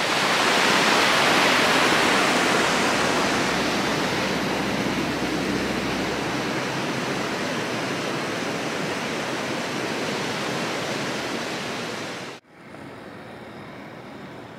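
Fast mountain river rushing over rocks, a loud steady roar of water that cuts off about twelve seconds in to a much quieter steady hiss.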